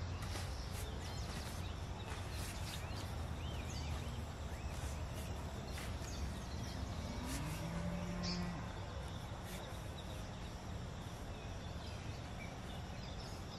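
Hand hoe chopping and scraping in loose soil to draw planting furrows, heard as occasional soft knocks over a steady outdoor background noise. Birds chirp now and then, and a short animal call sounds about eight seconds in.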